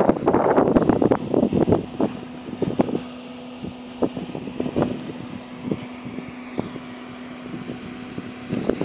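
Wind buffeting the microphone in loud gusts for the first two seconds. After that come scattered short ticks and rustles over a steady low hum.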